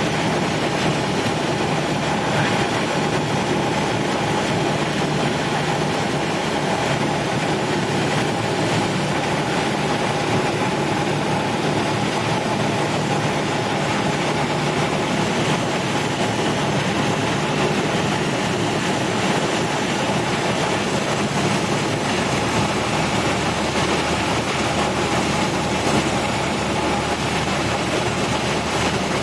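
Cessna 172's piston engine and propeller running steadily, heard from inside the cabin with airflow noise, on final approach to land.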